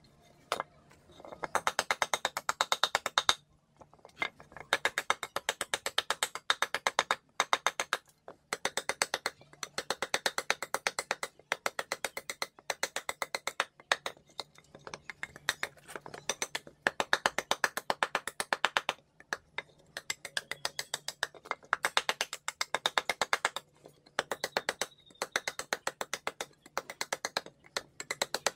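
A heavy machete-style blade hacking at a wooden bowl blank, roughing out its outside shape. Rapid chopping strokes come several a second, in runs of a few seconds with short pauses between.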